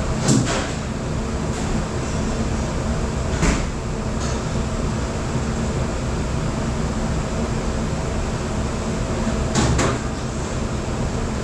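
Steady machine noise of a commercial kitchen dish room, broken by three sharp clatters: one just after the start, one about three and a half seconds in, and one near the end.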